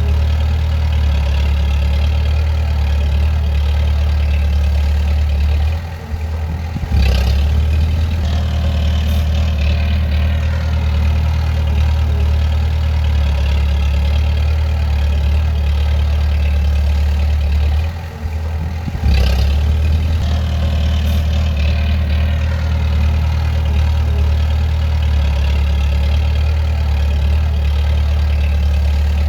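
Bulldozer's diesel engine running steadily at work, its note dipping briefly about six seconds in and again about eighteen seconds in before picking back up.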